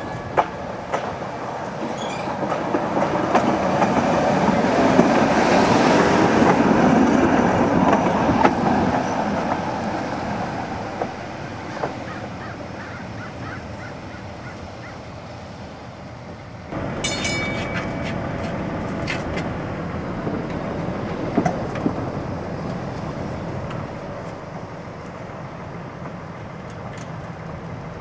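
A Muni PCC streetcar rolling past on its track, wheels rumbling and clicking over the rail joints. The sound swells to a peak around six seconds in and then fades as the car moves away. About seventeen seconds in, a short horn-like warning tone sounds, and the car's running sound then goes on, steady and more distant.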